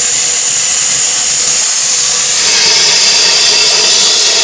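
HANDTEK Cut-40 air plasma cutter hissing steadily as its arc cuts through the casing of a car muffler.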